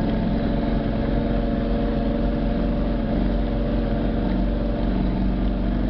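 V8 engine of a lifted off-road rig on big tyres, running at a steady pitch while driving through snow, heard from inside the cab.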